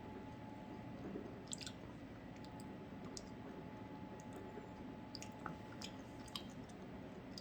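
A person chewing cotton candy and a granola bar: faint scattered mouth clicks and smacks over a quiet room hiss.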